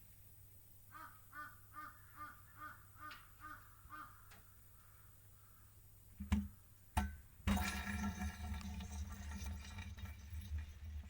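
A bird gives a run of about eight calls, roughly two a second. Then come two sharp knocks, and a louder steady noise with a low hum sets in and runs on.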